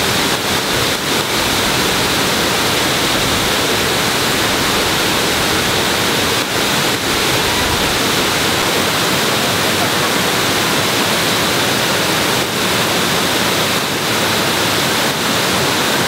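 Waterfall running loud and steady: a continuous rush of falling water.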